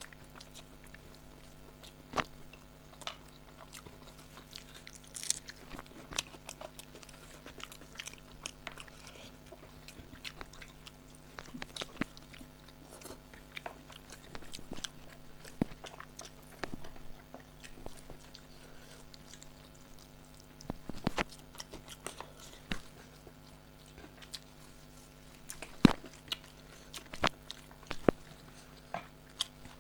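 People eating rice and chicken curry close to the microphone: chewing and biting with scattered small clicks and crackles, over a steady low hum.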